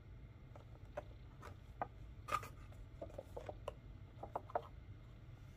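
Small cardboard box of a 1/500 die-cast model airliner handled and turned over in the hands: a scatter of soft scrapes and taps of fingers on cardboard, the loudest a little past two seconds in.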